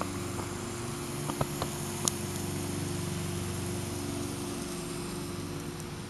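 A trioxane solid-fuel tablet burns under a toy steam boiler, popping sharply a few times in the first two seconds over a steady low hum and hiss.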